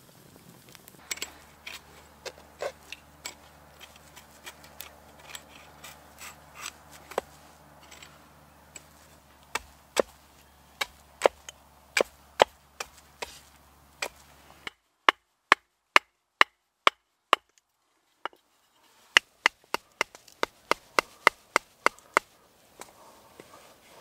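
Wood fire crackling with small irregular pops, then a hatchet chopping a green branch on a wooden chopping block: a run of sharp, evenly spaced wooden chops, about two to three a second.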